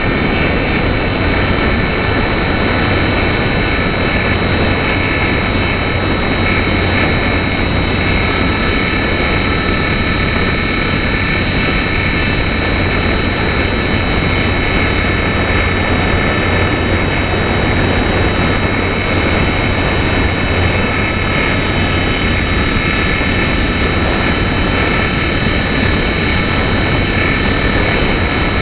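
Electric motor and propeller of a GWS Slow Stick model plane running steadily at full throttle in a climb, heard from the onboard camera: a steady high whine at several pitches over a constant rush of noise.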